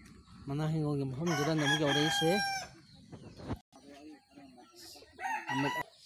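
Rooster crowing: one long crow about a second in, followed by a shorter call near the end.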